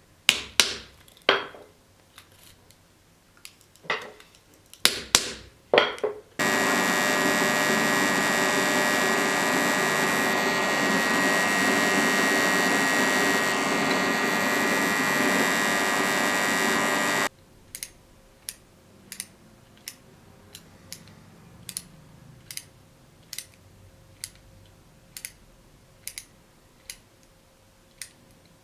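A few sharp knocks, then a small electric power tool running steadily for about eleven seconds, switching on and off abruptly, followed by light regular taps a little under a second apart.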